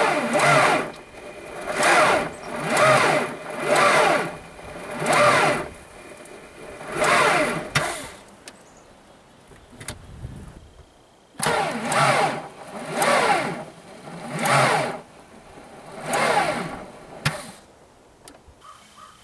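Starter motor on a VW 1.9-litre turbo-diesel engaged in about a dozen short bursts, each under a second, with a whine that falls in pitch as it strains against an engine that will barely turn, and a pause midway. The engine is nearly seized; the cause turned out to be a seized alternator.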